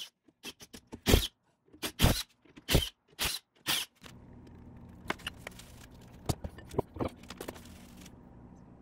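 A cordless driver run in several short bursts over the first four seconds, spinning out the bolts that hold the crown wheel to the differential carrier. After that comes a low steady hum with a few light metallic clicks as the parts are handled.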